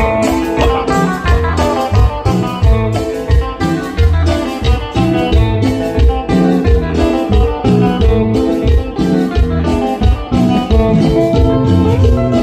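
Loud music led by guitar over a steady, pulsing bass beat.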